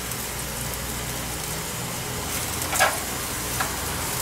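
Meat skewers sizzling on an electric grill, with the steady hiss and hum of an electric fan blowing close by. Metal tongs click sharply against the grill grate about three seconds in, and lightly once more shortly after, as a skewer is lifted off.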